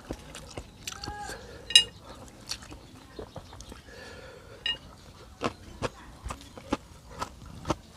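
Close-up eating sounds: chewing and smacking of noodle soup, with sharp clinks of utensils against a bowl, the loudest and most ringing about two seconds in and another near five seconds.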